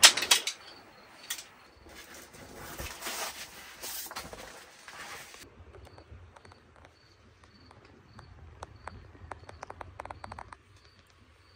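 Soft rustling and scattered light clicks of people shifting in their bedding. Under them is a faint high chirp repeating about twice a second.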